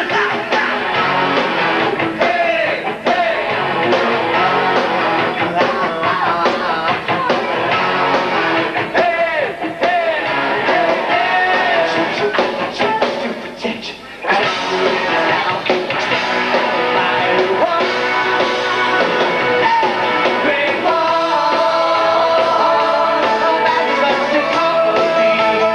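Live rock band playing, with electric guitar. The music thins out briefly about halfway through, then the full band comes back in.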